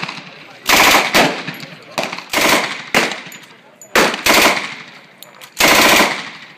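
Pistol shots fired in quick succession, about seven loud bangs in uneven groups, some coming close together, each tailing off briefly.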